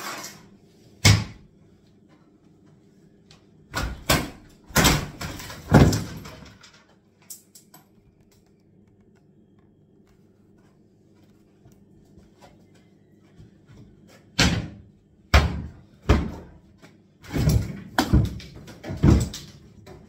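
Wooden kitchen unit knocking and banging as it is worked loose and pulled out: one bang about a second in, a cluster of three or four around the middle of the first third, a quiet stretch, then about six knocks in quick succession near the end. A faint steady hum sits underneath.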